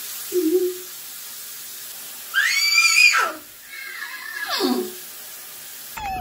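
Voice squeals during toothbrushing: a loud high squeal that rises and then drops steeply in pitch, then a second, shorter falling squeal, over a steady hiss. A brief low hum comes about half a second in.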